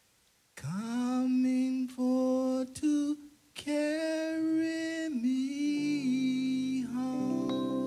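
A man singing slowly and unaccompanied into a microphone, sliding up into long held notes with short breaths between phrases; about six seconds in, sustained keyboard chords come in under the voice.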